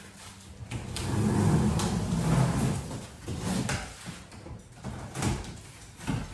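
Large cardboard bicycle shipping box being opened and handled: cardboard scraping and sliding, with a few knocks.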